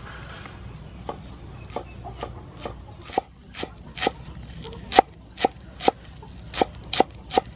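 Cleaver chopping green onions on a wooden cutting board: sharp knocks of the blade striking the board. They start about a second in, settle to about two a second, and grow louder in the second half.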